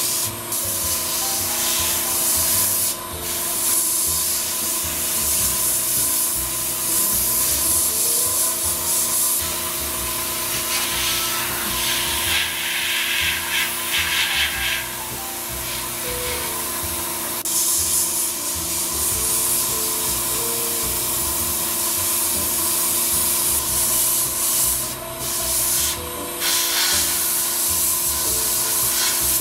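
Paasche H airbrush spraying ink at about 25 PSI: a steady hiss of air, broken off briefly four times as the trigger is let go, over a steady hum from the air compressor.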